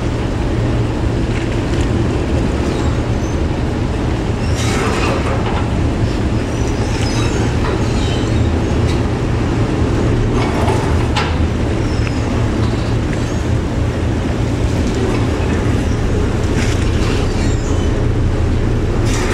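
Passenger ferry's engines running steadily at the berth, a continuous low rumble, with a few short metallic knocks.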